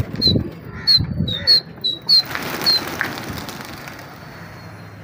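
A flock of pigeons taking off together from a rooftop loft, a rush of wingbeats starting about two seconds in and fading as they climb away. Before it, low pigeon cooing and a quick run of sharp, high chirps.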